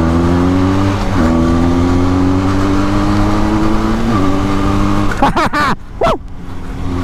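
Benelli 502C's 500cc parallel-twin engine pulling hard under acceleration, its pitch climbing in each gear, with upshifts about a second in and about four seconds in. About five seconds in the revs fall away sharply, with a few quick rises and drops.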